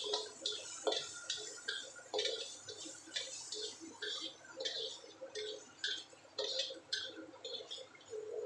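A spatula scraping and knocking against a wok while stirring chopped vegetables, in short strokes about twice a second.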